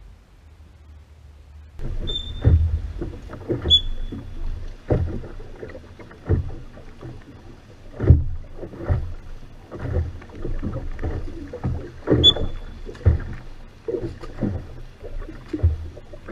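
Venetian rowing boat under oar: irregular splashes and knocks of oar strokes, about one a second, starting about two seconds in, with a few short high squeaks.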